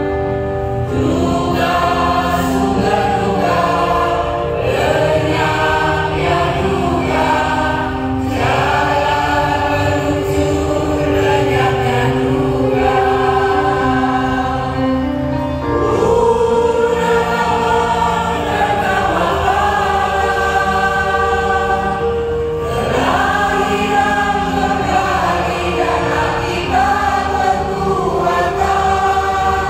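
A large mixed choir of women and men singing in several-part harmony, holding long notes.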